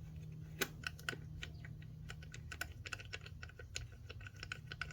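Light, irregular metal clicking from a socket wrench as a loosened ignition-coil mounting bolt is worked out.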